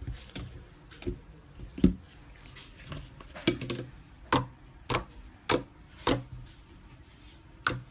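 Slime being pressed and squeezed by hand, giving a string of sharp wet clicks and pops from trapped air. They come irregularly at first, then about one every half second or so from about four seconds in.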